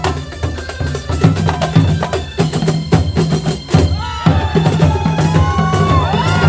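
Terbang frame drums slapped by hand, interlocking in a fast, even rhythm over a large double-headed bass drum beaten with a stick. About four seconds in, a high wavering melody joins above the drums.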